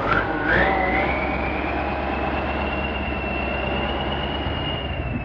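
KrAZ-255B truck's turbocharged V8 diesel, taken from a K-700 tractor, running with a deep steady rumble. A high turbo whistle climbs during the first second, holds, and eases slightly near the end.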